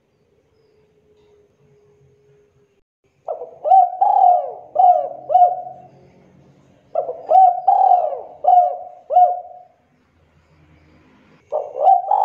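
Spotted dove cooing: three phrases of several rolling coos each, the first starting about three seconds in and the last near the end.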